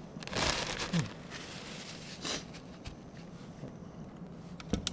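Plastic bag and paper towel rustling as a paper towel is pulled out, in two bouts, the longer one in the first second. A few sharp clicks near the end.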